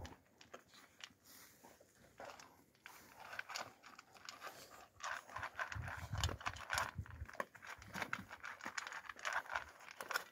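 An Alabai (Central Asian Shepherd) puppy eating from a bowl: quick irregular wet clicks of lapping and chewing, getting busier and louder about halfway through.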